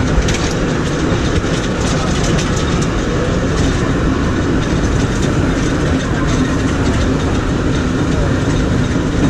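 San Francisco cable car running on its rails: a steady, loud rumble and rattle with scattered clicks and clacks.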